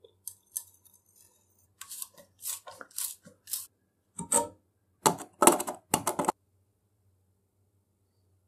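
Hand tools scraping and gripping at a rusted screw head set in an old wooden saw handle: a run of short, scratchy scrapes and clicks that stops a little past halfway.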